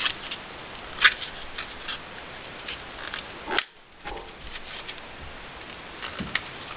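Hands working a small product package open: scattered small clicks and crackles of the packaging being handled, over a steady hiss.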